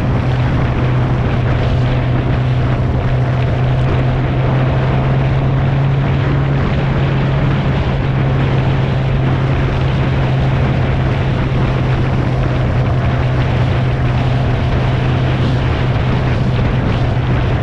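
Motorcycle engine running at a steady cruising speed, a constant low drone, mixed with wind rushing over the microphone.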